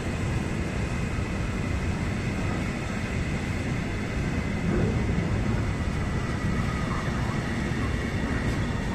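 Empty freight wagons of a goods train rolling past on the rails: a steady rumble of wheels on track with a faint steady whine above it.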